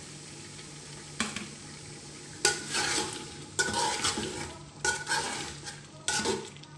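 Spoon stirring chopped tomatoes into sizzling chicken and masala in a pot, with scraping strokes against the pot about once every second or so, starting about a second in, over the sizzle of the hot oil.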